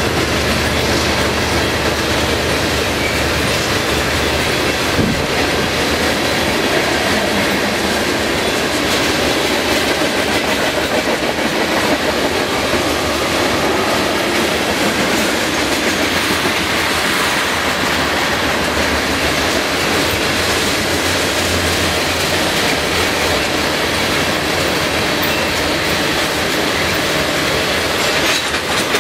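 A freight train's cars rolling past, a steady, unbroken noise of wheels on rail with some clickety-clack.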